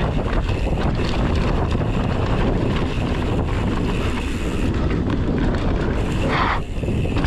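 Mountain bike riding fast down a dirt trail: a steady rush of wind on the microphone over tyres rolling on packed dirt, with the bike rattling over bumps. A short hiss about six seconds in.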